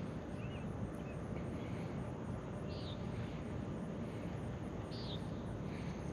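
Steady outdoor background noise by the water, with two short high bird chirps about three and five seconds in.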